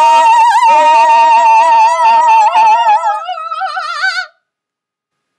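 A woman's voice singing a long, loud, held operatic note with vibrato. Near the end it moves to a different pitch, then cuts off abruptly about four seconds in.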